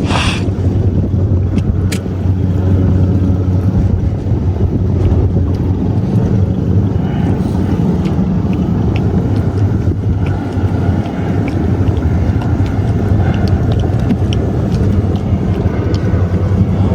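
Fishing boat's engine running steadily, a loud low hum, with wind and water noise over it.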